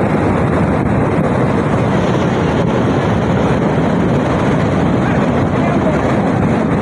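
Semeru lahar flood: a fast torrent of muddy volcanic debris flow rushing down the river channel, a loud, steady rushing noise with no breaks.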